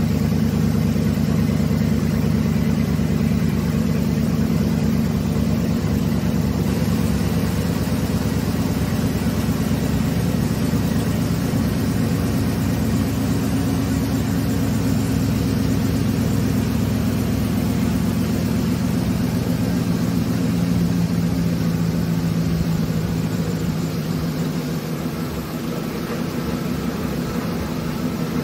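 Chevrolet Avalanche V8 engine idling steadily, a little quieter in the last few seconds. It is running to drive the transmission pump, which pushes old transmission fluid out through the cooler return line during a flush.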